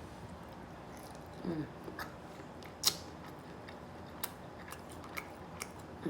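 A person eating seafood up close to the microphone: chewing and mouth sounds with scattered sharp clicks, the loudest a crisp crack about three seconds in.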